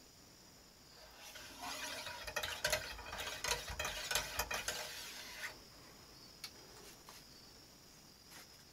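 A cleaning rod with a patch is worked in and out of a muzzleloader barrel, making a scratchy rubbing with rattling clicks of the rod against the metal. It starts about a second in and stops about five and a half seconds in, with one more small click a second later.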